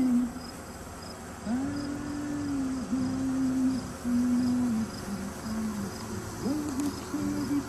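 A low voice humming a slow tune in long held notes, over crickets chirping in a steady rhythm.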